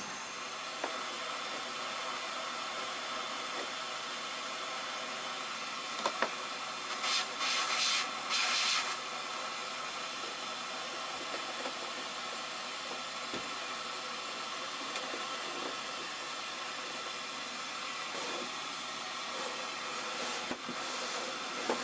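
Steady hissing noise with a thin high whine running under the work, and a couple of seconds of louder scratchy noise about seven seconds in.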